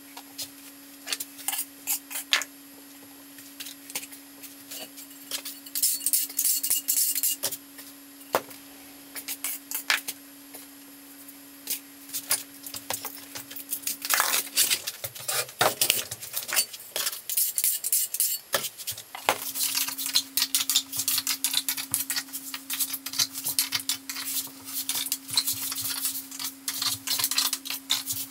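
Dense, irregular clicking, clinking and scraping of tile-work tools on the floor, over a steady low hum that drops out for a few seconds midway.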